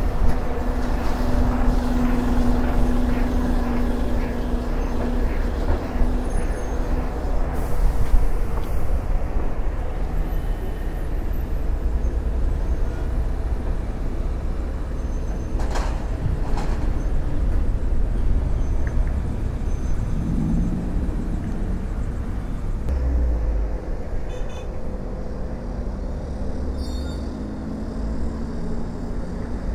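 City road traffic: buses and cars passing with a steady rumble. An engine note rises and falls about twenty seconds in.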